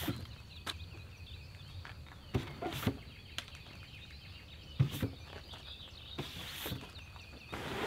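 Scattered knocks and clunks of camping gear being handled and packed up, with a rustling noise starting near the end, over a faint steady background of insects and birds.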